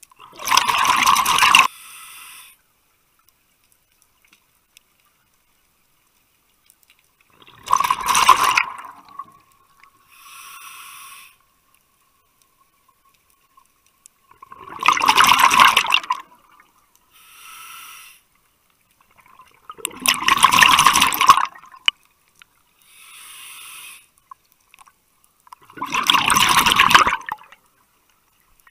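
Scuba diver breathing through a regulator underwater: five loud bursts of exhaled bubbles, roughly every six seconds, each followed by a quieter hiss of inhalation.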